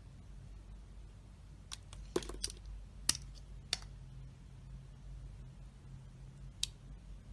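Knife carving a dry bar of soap: a cluster of short, crisp cutting clicks about two to four seconds in and one more near the end, over a low steady hum.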